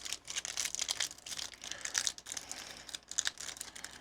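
Foil Pokémon booster pack wrapper crinkling and crackling in irregular bursts as it is handled and torn open.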